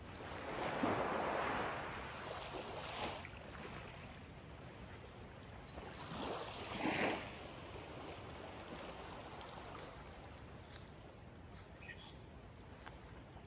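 Small waves lapping on a sandy shore of a calm bay, washing in as soft surges, the largest about a second in and another around the middle, with quieter water movement between.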